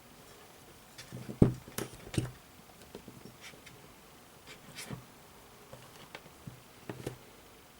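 Scattered light clicks and taps of work on a circuit board, with one louder knock about one and a half seconds in.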